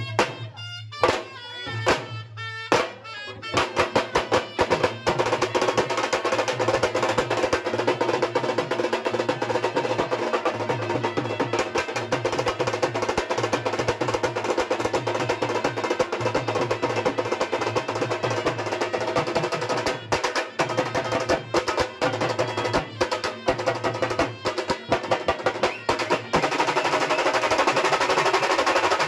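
Khalu baja band playing: barrel drums beaten with sticks, first a few separate strokes, then a fast, driving rhythm about three seconds in, with trumpets playing a melody over it. Near the end the drumming speeds up into a rapid, rattling roll.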